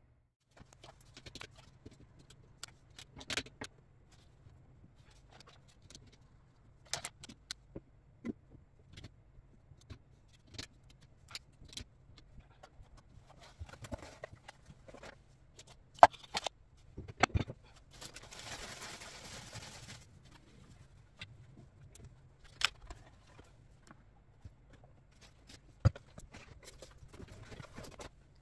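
Bottles, jars and other household items knocked and set down, one after another, onto the plastic shelves of an under-sink organizer: irregular clunks and clicks, with a brief rustle lasting a couple of seconds past the middle.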